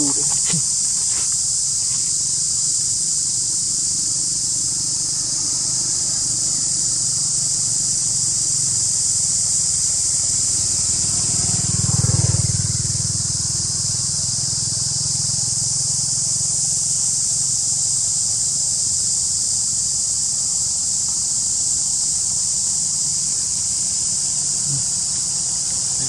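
Steady high-pitched drone of an insect chorus, with a low rumble underneath that swells briefly about halfway through.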